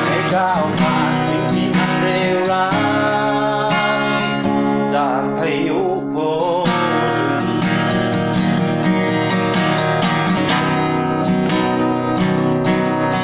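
Acoustic guitar strummed in a steady rhythm: an instrumental passage between sung verses of a song.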